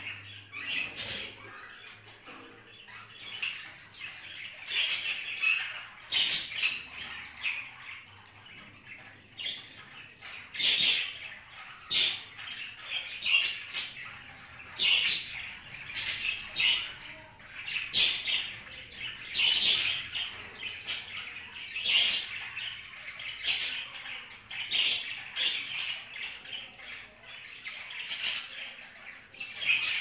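Budgerigars chattering and squawking: a continuous run of short, harsh chirps and squawks, with louder sharp calls about every one to two seconds.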